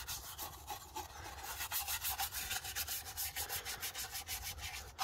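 A small brush scrubbing engine degreaser over a wet rocker cover, rubbing with quick back-and-forth strokes, several a second.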